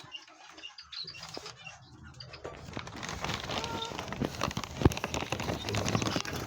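Rustling and scraping of hands and nesting material as a wax-sealed egg is put back under a brooding bird, denser from about halfway through, with many small clicks and one sharp click near the end. A short bird call sounds about halfway through.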